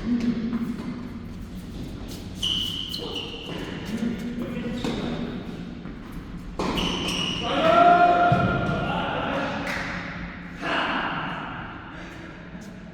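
Tennis ball being hit with rackets and bouncing on an indoor court, a sharp knock every second or two, echoing in a large hall.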